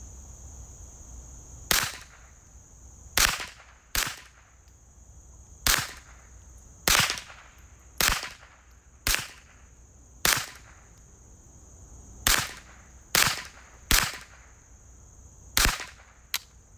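Ruger 10/22 semi-automatic .22 LR rifle firing about a dozen single shots at an uneven pace, roughly one a second with short pauses, each a sharp crack. Crickets buzz steadily underneath.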